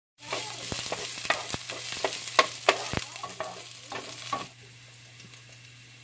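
Ginger, garlic, shallots and green onion sizzling in oil in a pot on heat a little too high, slightly burning them, with a wooden spoon stirring and knocking against the pot in sharp clicks. About four and a half seconds in it cuts suddenly to a quieter, steady hiss from a small saucepan of boiling water.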